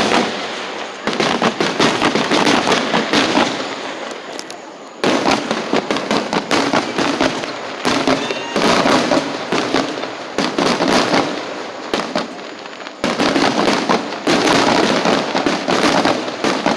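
Fireworks going off up close: a loud, dense crackle of many rapid pops that goes on without a break. Sudden jumps in loudness come about a second in, five seconds in and thirteen seconds in.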